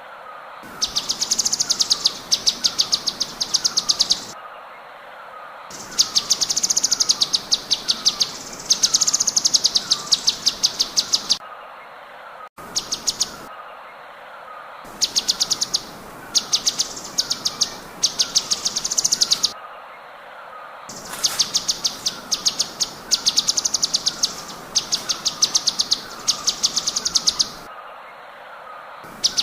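Cucak cungkok songbird singing its rapid-fire 'tembakan' song: dense runs of sharp, high, fast-repeated notes lasting a second or two, broken by short pauses. Under them runs a steady series of lower chirps about twice a second.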